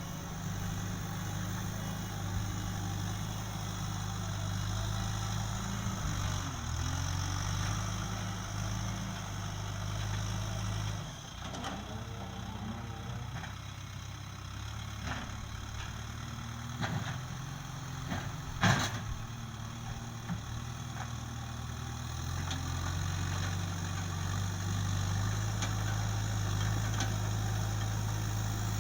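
Backhoe loader's diesel engine running steadily, dropping to a lower, thinner note about eleven seconds in and building back up near the end. A single sharp knock sounds partway through.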